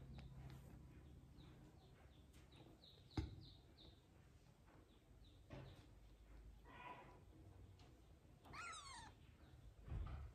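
Newborn kitten mewing faintly twice, thin high cries, the second rising then falling in pitch near the end. A sharp tap about three seconds in, and a soft thump near the end as it is handled.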